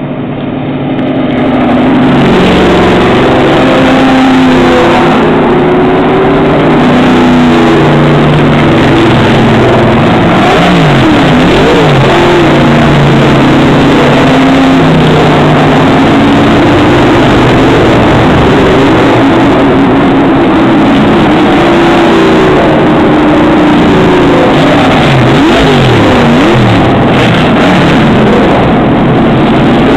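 Vintage Camaro and Mustang race cars driving past one after another, their engines running loud throughout. The engine pitch swings down and back up twice, around ten seconds in and near the end.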